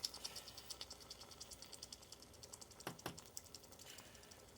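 Egg and butter sizzling faintly in a frying pan, a fast patter of small crackles, with a couple of light clicks about three seconds in.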